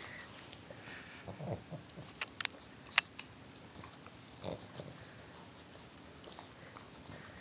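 A dog sniffing and snuffling at a whole clementine, nosing and mouthing it, with a few sharp clicks a little before the middle.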